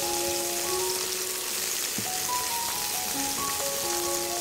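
Whole taki fish (spotted snakehead) sizzling steadily as they shallow-fry in soybean oil over medium heat. Background music plays over it, and there is a single light click about two seconds in.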